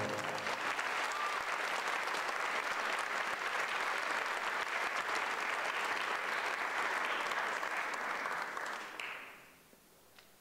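Audience applauding, a dense steady clapping that dies away about nine seconds in.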